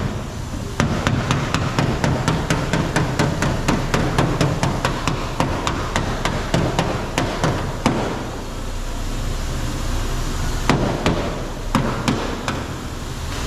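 Hammer striking a car's sheet-metal quarter panel in quick repeated blows, about four or five a second, thinning out to a few scattered strikes later on, over a steady low hum.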